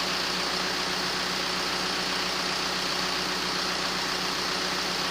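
Audi A3 1.9 TDI four-cylinder turbo-diesel idling steadily, just restarted after its injection pump timing was adjusted.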